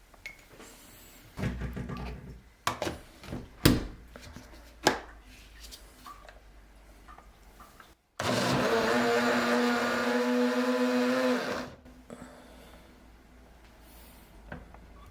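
A few clatters and knocks of kitchen things, then a small electric appliance motor runs steadily for about three and a half seconds and stops.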